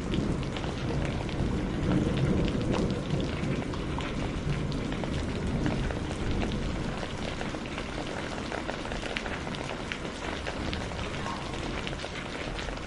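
Steady heavy rain, a dense patter of many individual drops hitting a surface. A low rumble sits underneath and is strongest in the first few seconds.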